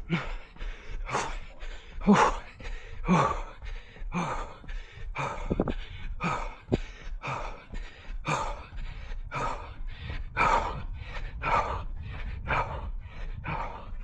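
A runner's heavy, laboured breathing, about two breaths a second with a louder gasp roughly every second, from hard exertion at race pace.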